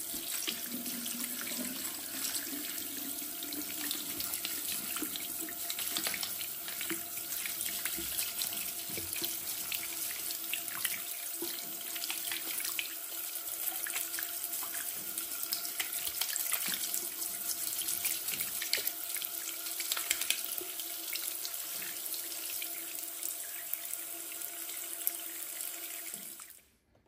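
Tap water running into a ceramic washbasin and splashing over a small plastic shower-door part held in the stream, with a toothbrush scrubbing the part. The water stops suddenly near the end.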